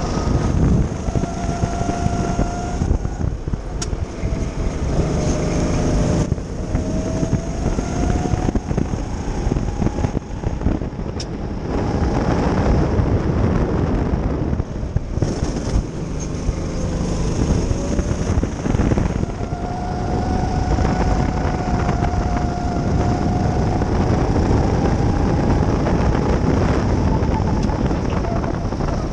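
Go-kart engine heard from the driver's seat at racing speed, its pitch rising as it accelerates and falling away each time the kart slows for a corner, several times over, over a heavy low rumble.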